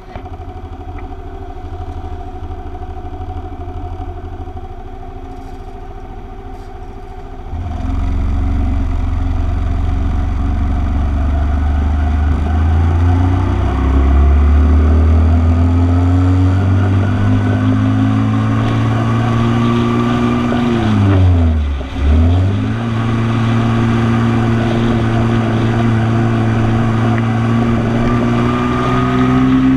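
Motorcycle engine idling in traffic, then pulling away about seven seconds in, its revs rising in steps through the gears. About two-thirds of the way through, the revs drop sharply and pick up again, then the engine runs steadily and climbs once more near the end.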